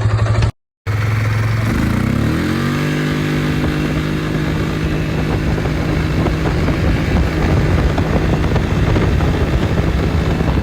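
Four-wheeler (ATV) engine running on its new fuel pump: a steady idle, then after a brief cut it revs up, rising in pitch over a second or so, and holds a steady higher speed.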